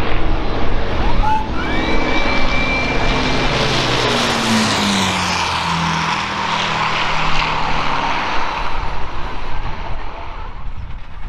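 Avro Lancaster's four Rolls-Royce Merlin piston engines running as the bomber flies past overhead, their pitch sliding down as it passes about four to six seconds in, then fading near the end.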